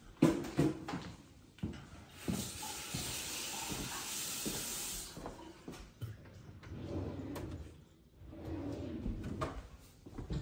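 Several knocks and clunks, with a steady hiss lasting about three seconds from about two seconds in.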